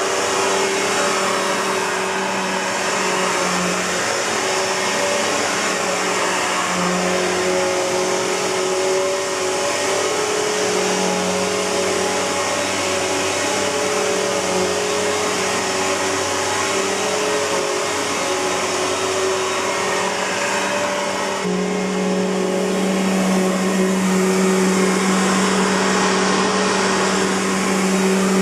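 Simplicity Symmetry upright vacuum cleaner running steadily, its Suzhou Kaihang motor fitted with replacement bearings: a steady rushing of air over a pitched motor hum. About two-thirds of the way through, the sound shifts, and the low hum becomes steadier and a little louder.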